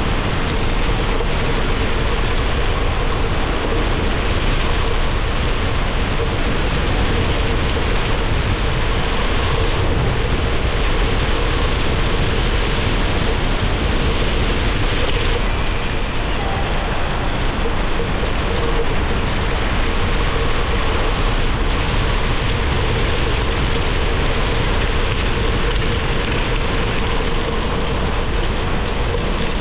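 Gravel bike rolling on a forest trail: steady noise of Panaracer GravelKing SS 38 mm tyres on gravel and wind on the microphone, with a steady hum under it.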